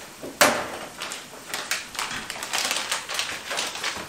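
Kitchen handling clatter: a sharp knock about half a second in, then a run of light clicks and rustles as things are picked up and set down on the counter.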